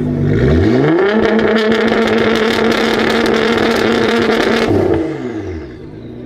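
Nissan GT-R R35's twin-turbo V6, tuned to 800 hp and fitted with a Boost Logic exhaust, revved while stationary. It climbs quickly from idle, is held high for about four seconds, then drops back to idle.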